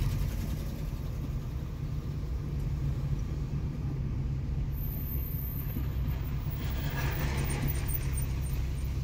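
Car engine and road noise heard from inside the cabin while driving: a steady low rumble, with a brief rise in hiss about seven seconds in.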